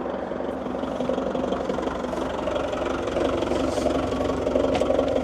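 Forklift engine idling steadily, a little louder from about three seconds in.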